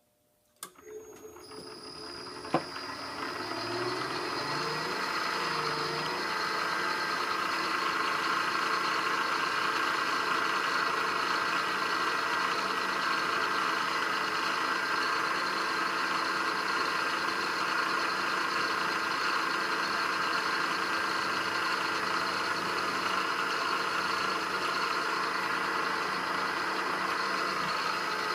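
Milling machine spindle motor starting and speeding up over the first few seconds, then running steadily as a 1/4-inch spot drill cuts into a steel gear; a single click a couple of seconds in, and the spindle starts to wind down right at the end.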